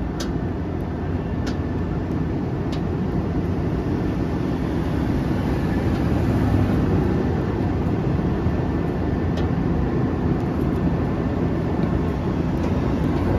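Steady low mechanical rumble from running machinery, with a few faint clicks.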